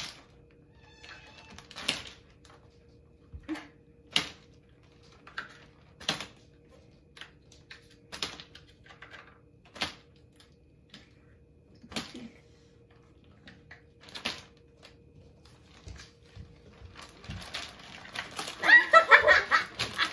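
Ice cubes being popped one at a time out of a plastic ice cube tray into a zip-top plastic bag: a sharp crack about every two seconds. Near the end, loud laughter.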